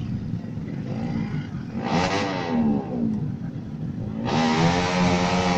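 Motorcycle engines revving as they pass, their pitch bending up and down. A louder, rising pass comes in a little past four seconds in.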